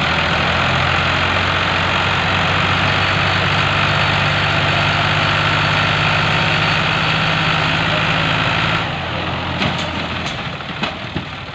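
Tractor diesel engine running hard and steady under heavy load, trying to pull a loaded sugarcane trolley that is stuck in deep mud. About nine seconds in, the engine is throttled back and drops off sharply, and a few short knocks follow.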